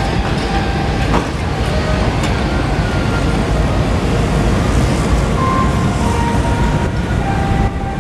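The Tachibana-maru ferry's engines running with a steady, loud low rumble as it pulls away from the quay, its propellers churning the water alongside the hull.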